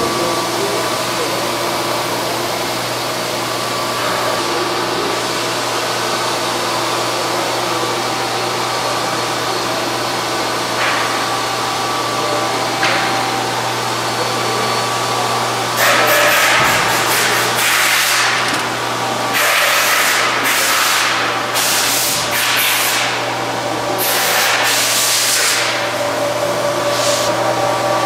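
Bosch PH3 packaging machine running: a steady hum with a few held tones. From a little past halfway it is joined by a run of louder bursts of noise, each about a second long, that stop a couple of seconds before the end.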